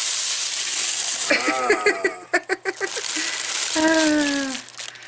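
Wrapping paper crinkling and rustling as it is pulled open by hand. It is loudest in the first couple of seconds, with short wordless vocal exclamations over it.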